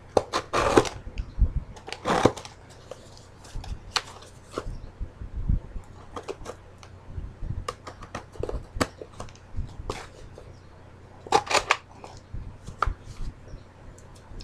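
Packaging being handled and opened by hand: scattered clicks and taps, with a few short bursts of rustling and crinkling, over the steady hum of an electric fan.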